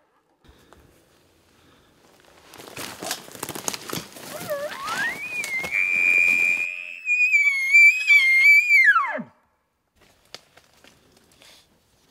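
Elk bugle. A scratchy, rough noise is followed by a note that climbs to a high whistle, holds for about three seconds with a wavering pitch, then drops steeply away to a low note.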